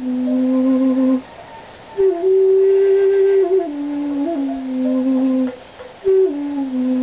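Hand-crafted bamboo flute in G, end-blown, playing slow, long-held low notes. Each phrase opens with a quick upward flick before settling, with a pause for breath about a second in and another near six seconds.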